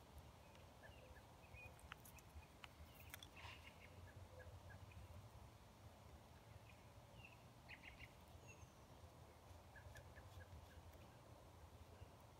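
Near silence: a few soft clicks and scrapes of a knife tip cutting into a thin stick of dry trembling aspen, with small birds chirping faintly in the background.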